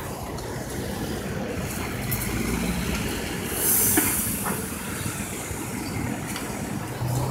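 City traffic: cars driving past close by through an intersection, with engine rumble and tyre noise and a short, loud hiss about halfway through.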